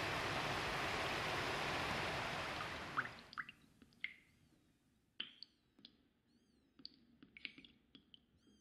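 A waterfall's steady rushing roar, which fades away about three seconds in. After that it is much quieter, with sparse faint high chirps and clicks.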